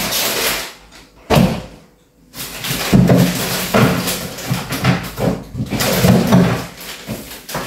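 A fridge door shutting with a single sharp thud about a second in, followed by the clatter and rustle of items being moved about.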